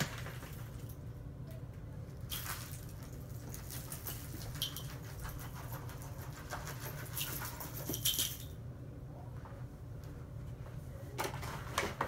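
Footsteps on a dirt-covered shag rug, with scattered bursts of crunching and rustling as debris is trodden in, over a steady low hum.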